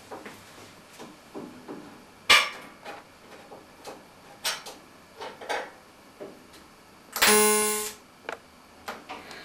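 Stainless steel pieces clink and knock as they are handled and fitted together. About seven seconds in comes a loud buzz lasting under a second, a TIG tack weld joining the pieces.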